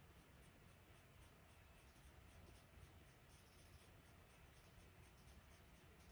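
Faint scratching of a Prismacolor Premier colored pencil shading on heavy white drawing paper in quick, repeated light strokes.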